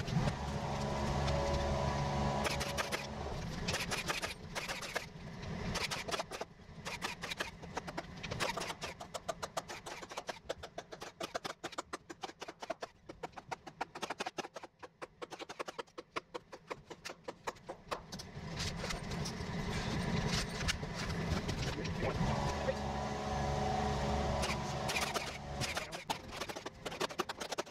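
An engine running, louder for the first few seconds and again over the last third, with a steady low hum and rapid clicking and rattling throughout.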